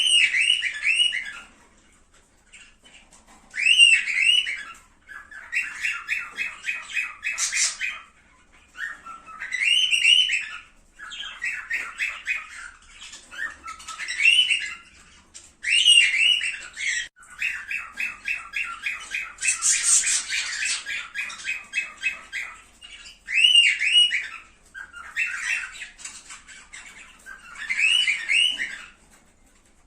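Cockatiels calling and chattering: short warbled whistles, repeated in pairs, alternate with long runs of rapid chirps, the longest about four seconds, from about seventeen to twenty-one seconds in.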